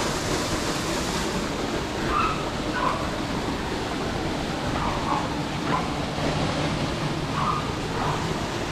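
Waterfall rushing water: a steady, even roar of falling water.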